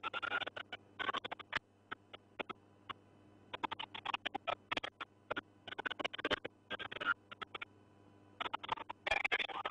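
Crackling static: irregular clusters of sharp clicks and crackles over a faint steady low hum, with a quieter stretch about two to three seconds in.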